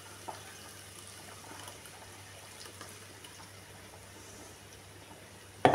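Thick ground masala paste pouring from a steel mixer jar into a kadai of hot oil, fried onion and tomato, a faint steady trickle and low sizzle. A sudden louder clatter comes right at the end.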